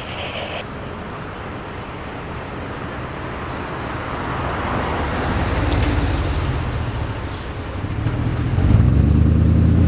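A motor vehicle's engine running close by. It swells in the middle and becomes loudest and lowest-pitched in the last second or so.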